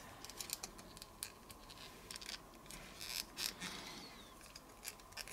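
Faint scattered clicks and scraping of a small Gobots transforming toy's parts being twisted and pushed by hand into robot mode, stiff enough to need some forcing.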